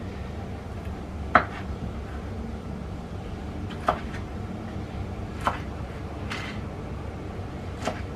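Cleaver chopping through okra onto a wooden cutting board: about five separate knocks a second or more apart, the first the loudest, over a steady low hum.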